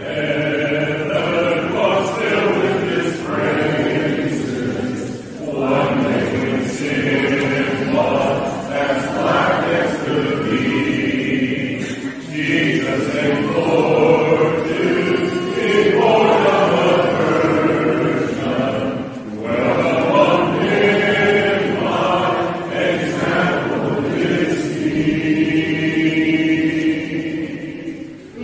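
A cappella group of voices singing a hymn in sustained phrases of several seconds, with short breaks between lines.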